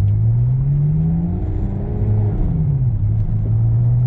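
Ferrari California's V8 engine pulling under acceleration: its note climbs for about a second and a half, swells and then drops back around a gear change, and settles to a steady tone for the last second.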